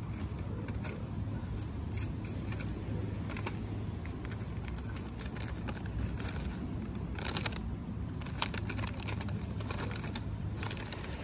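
Aluminium foil crinkling and crackling as it is folded and pressed around plant cuttings, in irregular clusters of crackles that are busiest past the middle, over a steady low rumble.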